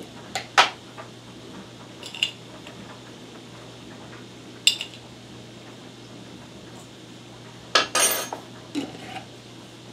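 A metal measuring spoon clinking against a glass jar as salt is scooped out: a few separate clinks, then a longer run of clinks and scrapes near the end. A faint steady low hum runs underneath.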